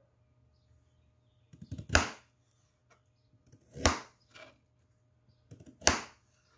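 Kitchen knife cutting through raw carrot and striking a plastic cutting board: three sharp chops about two seconds apart, each with a few fainter knocks just before it.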